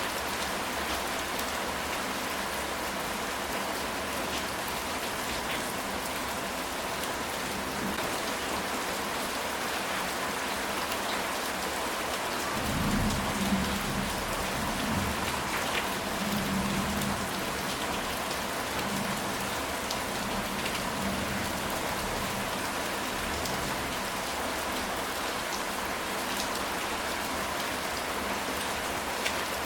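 Steady rain falling on a ceramic tile roof, with many small drop clicks. A low rumble of thunder rises about halfway through and fades over several seconds.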